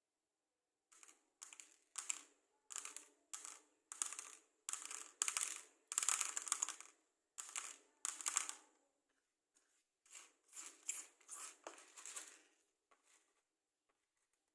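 Matchsticks handled close up: a run of short scratchy, rustling strokes, one to two a second, with a brief pause about two-thirds of the way through.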